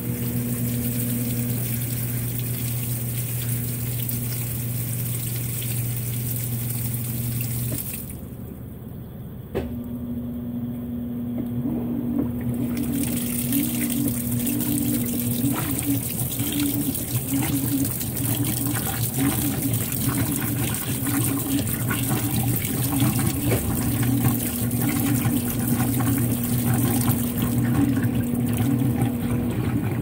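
Top-load washing machine loaded with towels: a steady motor and pump hum while water streams into the drum and splashes on the load. The sound drops briefly about a third of the way through, then resumes.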